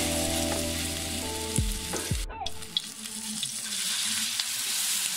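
Hot oil sizzling steadily as spoonfuls of carrot and corned beef patty mixture fry in a wok. Background music with held notes plays over it and stops about two and a half seconds in.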